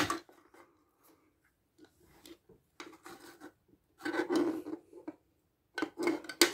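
Plastic LEGO DUPLO bricks being handled: a sharp clack at the start, then rubbing and scraping of plastic about four seconds in, and a quick run of clicks near the end.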